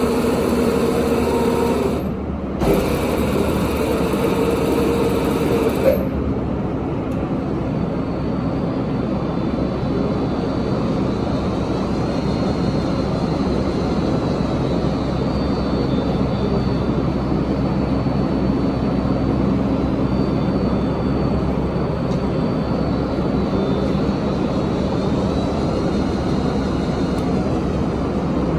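Aronson GE500-400 welding positioner's electric drive motor and gearing running steadily, with a humming tone for the first few seconds. The sound changes to a steadier, noisier running sound about six seconds in.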